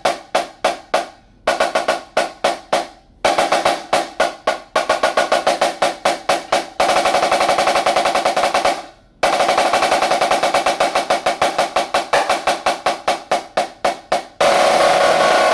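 Dynasty DFX 14-inch snare drum being played: fast runs of single strokes broken by short pauses, a sustained roll about seven seconds in lasting about two seconds, and another roll starting near the end.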